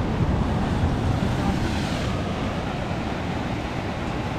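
Ocean surf breaking and washing against the boulders of a rock jetty, a steady rushing wash, with wind buffeting the microphone.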